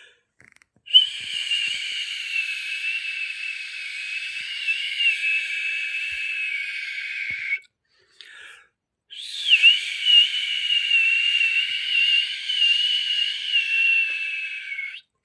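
A person whistling by mouth: two long held high notes, each about six seconds, wavering slightly in pitch, with breathy hiss and a short break between them.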